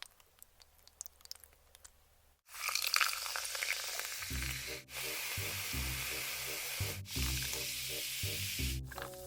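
Food sizzling hard on a hot pan, a loud steady hiss that starts suddenly about two and a half seconds in after a few faint clicks. Background music with a thumping beat joins about four seconds in, and the sound breaks off briefly a few times.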